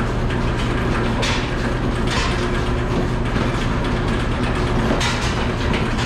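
Steady low mechanical hum of a pipeline milking system's vacuum pump running, with a few short hissing surges.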